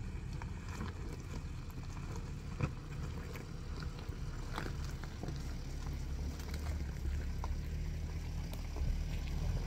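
Nissan Terrano II 2.7 TDi diesel engine running slowly as the 4x4 crawls over a loose rocky track, with stones clicking and knocking under the tyres. The engine grows louder in the last few seconds as the vehicle comes closer.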